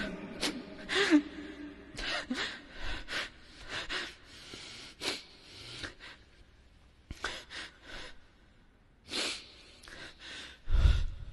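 An imam weeping at the microphone in the middle of his Quran recitation: short, irregular sobbing gasps, sniffs and breaths with pauses between them, and a louder breath near the end.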